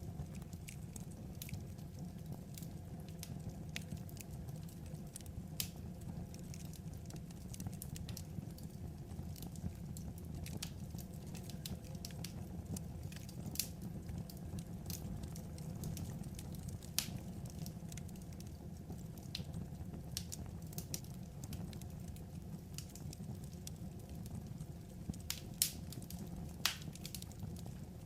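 Crackling wood fire: a steady low rumble with irregular sharp pops and snaps, a couple of louder snaps near the end.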